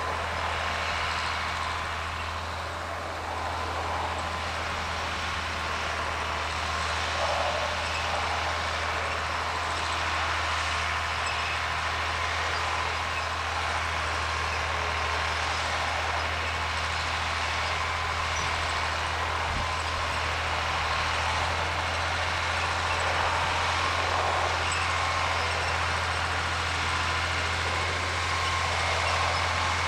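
John Deere 4010 tractor pulling a chisel plow under load, its engine a steady, unbroken drone that grows slightly louder in the second half.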